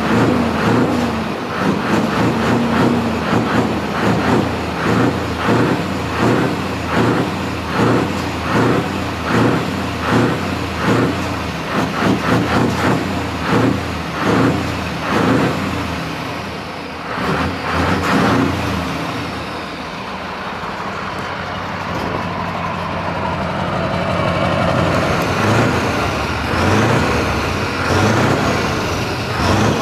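A big truck's diesel engine with open exhaust pipes, revved in repeated sharp throttle blips about once a second. It then settles into a steadier, rising run with a few more revs near the end.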